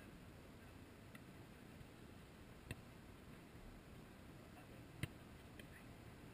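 Two short thuds of a football being struck, about two and a half seconds apart, the second the louder, over faint outdoor hiss.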